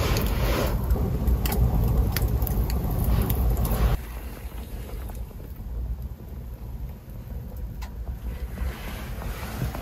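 Low, uneven wind rumble on the microphone, with a few light clicks as metal skewers are handled. The rumble drops sharply about four seconds in.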